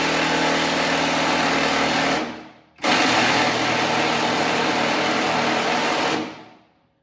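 Cordless power wrench run in two long bursts, about three seconds each with a brief pause between, on a truck fender bolt, failing to break the bolt loose.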